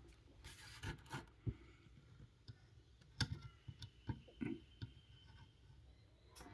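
Irregular light clicks, taps and a brief scrape of small metal kit parts being handled and worked on a workbench, with the sharpest taps bunched about three to five seconds in.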